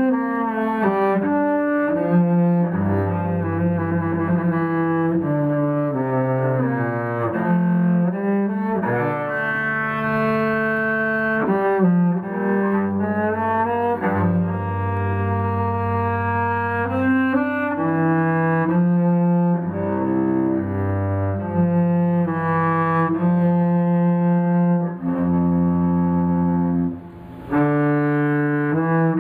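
Unaccompanied cello played with the bow: a slow line of sustained notes that change every second or two. There is a brief drop in level about 27 seconds in.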